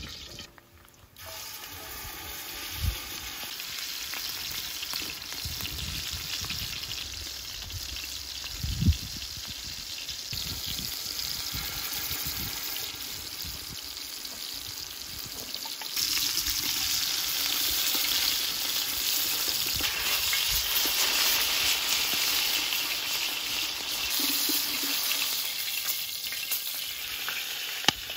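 Beef tenderloin searing in hot oil in a large pan: a steady sizzle that gets louder about halfway through. Two dull thumps come within the first ten seconds.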